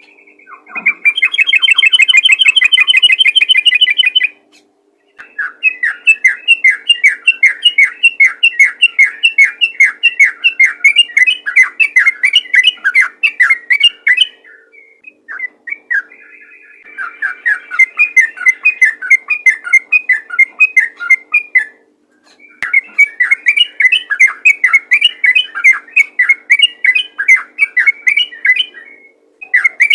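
Yellow-vented bulbul (trucukan) singing its rapid, run-on 'ropel' song: long runs of quick repeated chattering notes, each several seconds long, broken by short pauses.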